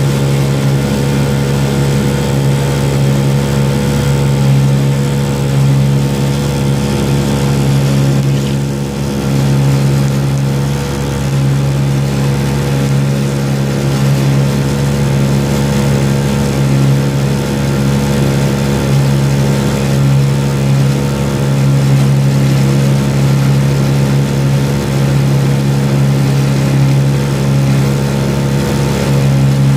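A boat's motor running at a steady speed while underway, a constant hum with a strong low pitch that holds the same note throughout.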